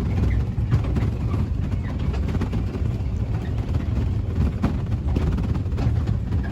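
Small garden tourist train running, heard from aboard: a steady low rumble with scattered light rattles.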